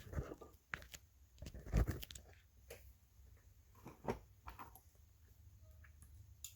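Handling noise: a scattered series of short knocks and clicks, the loudest about two seconds in and another pair around four seconds, as the camera and tools are moved about.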